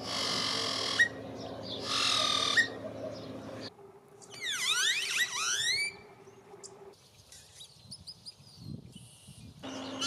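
Great-tailed grackles calling in a string of short recordings: two squawk-like noisy calls in the first three seconds, the first ending in a sharp click, then a quick run of gliding whistles around the middle, then fainter high notes. These are the machine-like, old-radio sounds of the species, with a steady low hum under the first call.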